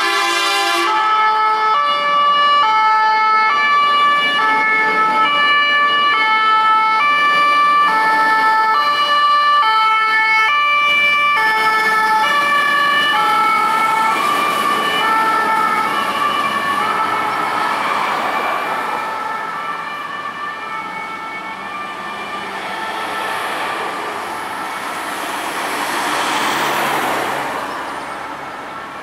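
Fire engine's hi-lo siren, switching between two tones about every half second, loud at first and fading after about fifteen seconds as traffic noise swells. An air horn sounds briefly, cutting off about a second in.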